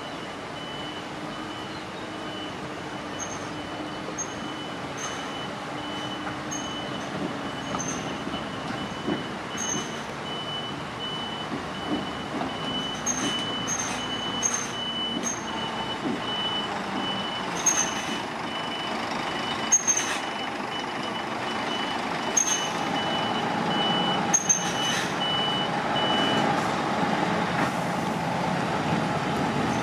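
Scania articulated lorry reversing with its reverse alarm beeping in a rapid, steady high-pitched pulse over the engine running; the beeping stops near the end. A few short sharp sounds come in the second half.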